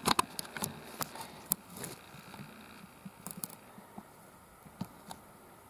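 Handling noise from a camera being adjusted: scattered sharp clicks and taps, a quick cluster at the start and a few more spread through the rest, over a faint steady hiss.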